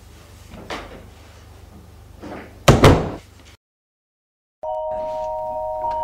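A door slams shut with a loud bang about two and a half seconds in, after a couple of softer knocks. After a second of silence, a held musical chord of a few steady tones begins.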